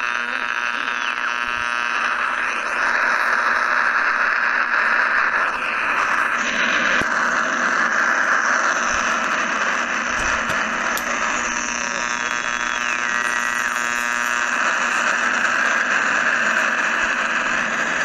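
Radio static: a steady hiss with whistling tones, one of which slides down in pitch partway through.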